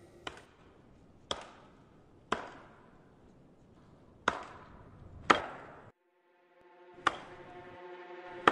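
Sharp single knocks about a second apart, each ringing out briefly. Near the end the sound cuts out for a moment and a sustained music drone comes in.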